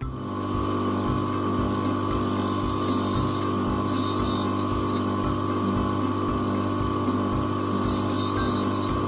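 Bench grinder running with a steady hum while a 3 mm high-speed-steel drill bit is pressed to the wheel to thin the web at its point. A brief hiss of steel grinding on the wheel comes about four seconds in and again near the end.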